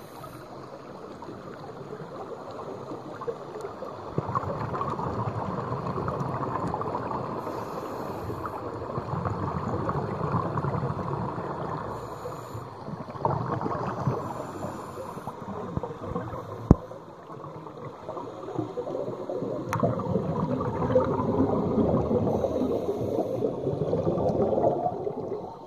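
Scuba divers' exhaled regulator bubbles gurgling underwater, swelling and fading in long waves with the breaths. One sharp click about two-thirds of the way through.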